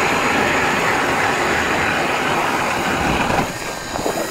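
StrikeMaster Lithium 40V battery-powered ice auger drilling through lake ice: a steady motor whine over the grinding of the blades cutting ice. It eases off about three and a half seconds in.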